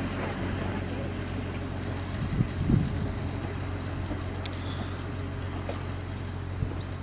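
Narrow-gauge diesel locomotive's engine running steadily as it pulls slowly away along the track, with a couple of faint knocks about two and a half seconds in.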